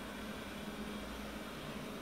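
Steady room tone: an even hiss with a low, constant hum like a running household appliance, and no distinct events.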